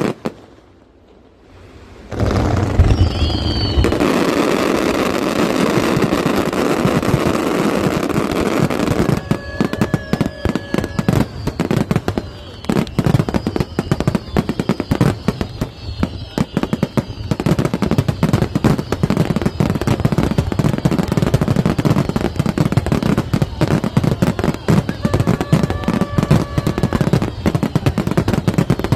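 Aerial fireworks going off: after a brief lull, a deep boom about two seconds in, then a long run of rapid crackling bursts with short falling whistles.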